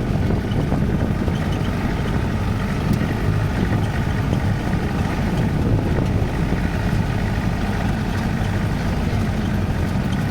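Steady low rumble of a vehicle driving, engine and road noise without change.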